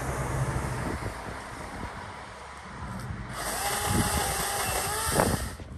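Ryobi ONE+ OCS1830 18 V brushless cordless chainsaw starting about halfway through and running with a steady motor whine, then cutting off near the end. Wind noise on the microphone before it starts.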